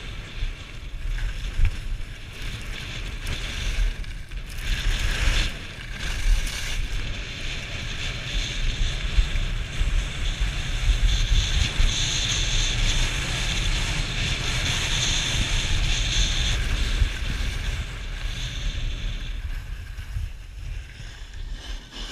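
Wind buffeting an action camera's microphone during a ski run downhill, a heavy rumble with a steady hiss of skis scraping over packed snow, loudest about halfway through.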